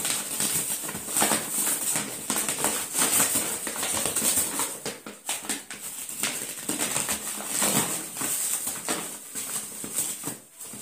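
A small dog biting and tugging at a bubble-wrapped, taped plastic parcel, the wrap crinkling and crackling unevenly as it tears at it.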